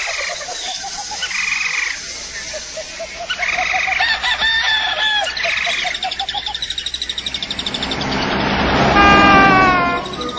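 Night-time animal chorus: frogs croaking in an evenly pulsing rhythm, with bird calls. Near the end a rush of noise swells and a call falls in pitch.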